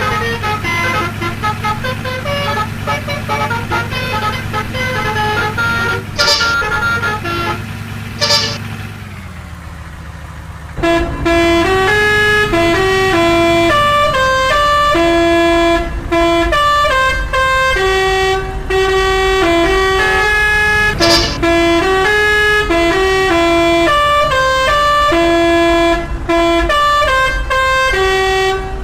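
A bus's multi-tone "telolet" musical horn. For the first ten seconds a steady low engine hum runs under scattered horn tones, with two short hisses. From about eleven seconds in, the horn plays a clear melody of short stepping notes that repeats to the end.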